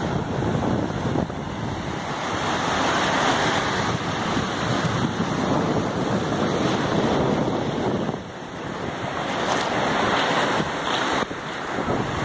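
Ocean surf breaking and foam washing up over wet sand, a steady rushing that swells and dips sharply about eight seconds in, with wind buffeting the microphone.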